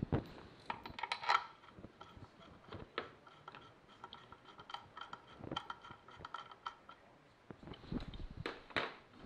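Scattered light metallic clicks, clinks and scrapes of steel bolts being handled and threaded by hand into a motorcycle clutch, with a faint metallic ring in the middle.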